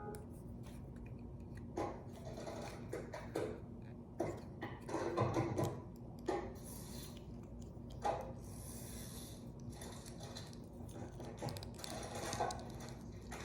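Small plastic toy pieces and packaging being handled: irregular rustling and rubbing with light clicks and taps.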